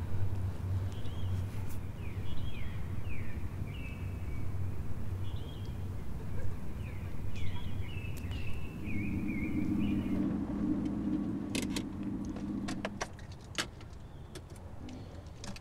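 Evening outdoor ambience with birds chirping in short sweeping calls, then a car interior with a steady low engine-like hum and a run of sharp clicks and knocks near the end.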